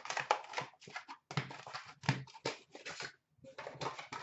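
Hands handling a cardboard hockey card box and its wrapped card packs: irregular rustles, scrapes and light taps, with a short pause near three seconds in.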